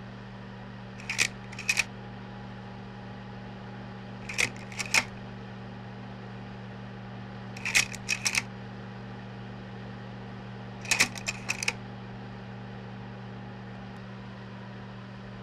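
Slide projector running with a steady low hum, its slide-change mechanism giving a quick cluster of sharp clicks four times, about every three seconds.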